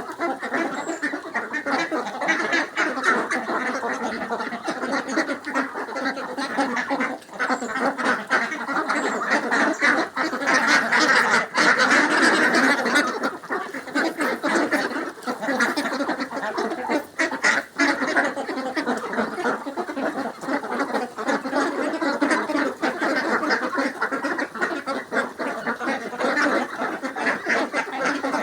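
A flock of domestic ducks quacking continuously, many calls overlapping, loudest around the middle.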